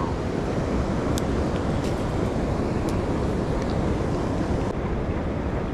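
Steady rush of flowing river water, with wind on the microphone and a few faint ticks.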